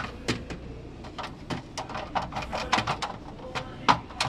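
Irregular plastic clicks and knocks of a refrigerator's ice-maker water tray being pushed and worked back into its slot, with one sharper knock near the end.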